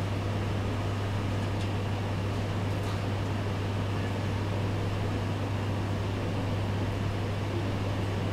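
Room tone: a steady low hum under an even rush of ventilation noise, with no distinct events.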